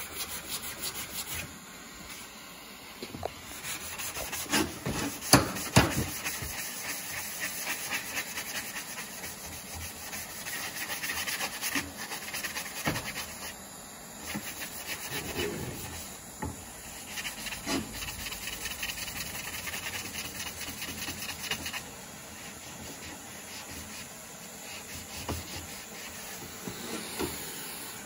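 Propane hand torch burning with a continuous hissing rush of flame as it is played over a steel exhaust header pipe to heat-colour it blue, with a fluttering crackle throughout and a few louder knocks about five seconds in.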